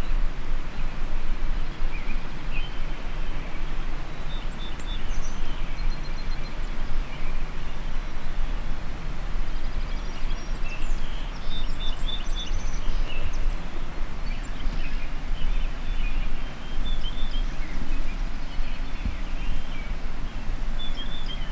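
Steady outdoor background noise with a low rumble, and scattered faint bird chirps throughout.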